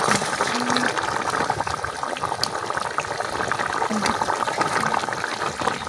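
Thick beef and potato curry bubbling and simmering in a large pot, a steady sputtering with many small pops.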